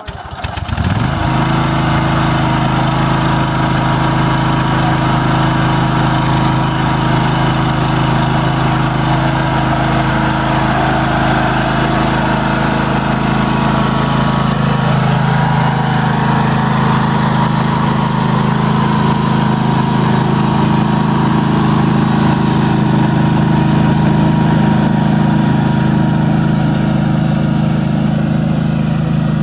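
Riding lawn mower engine starting up about a second in and then running at a steady, even speed.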